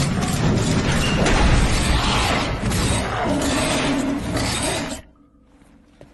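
Loud, dense action-film sound mix of crashing and shattering effects under the score. It cuts off abruptly to a hush about five seconds in, then comes back just at the end.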